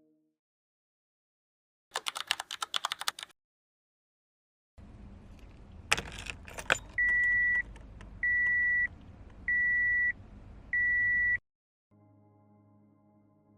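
Car keys jangling, then a low rumble with two sharp clicks, followed by four evenly spaced electronic dashboard warning chimes. A faint low drone comes in near the end.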